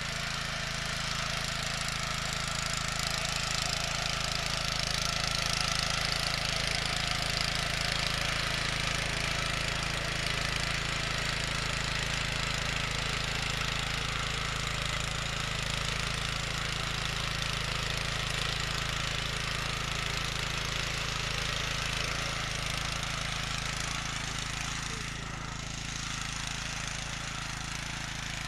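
Honda FJ500 mini power tiller's single-cylinder four-stroke engine running steadily while its rotary tines churn the soil, dipping slightly in level near the end.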